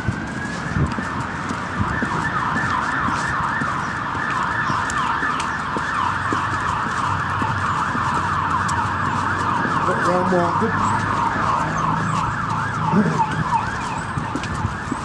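Emergency vehicle siren in fast yelp mode: it rises at the start, then repeats quick pitch sweeps several times a second.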